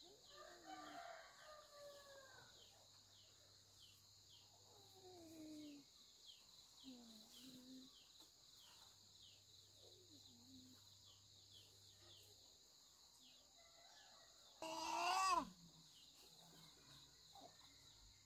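Faint chicken calls scattered through, with one much louder, short call near the end, over a steady high chirring of insects that pulses about twice a second.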